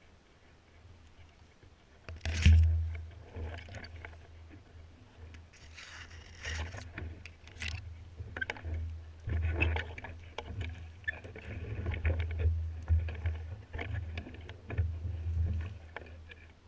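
Someone walking through dense woodland undergrowth: irregular footsteps and leaves and stems brushing and scraping, over low rumbling knocks of handling noise on the microphone, with a loud bump about two seconds in.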